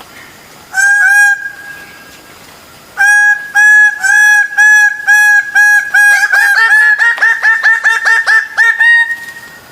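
Bird-of-paradise giving loud, honking calls: two single calls, then a run repeated about twice a second that speeds up into a fast rattle of calls with slightly higher pitch, ending abruptly.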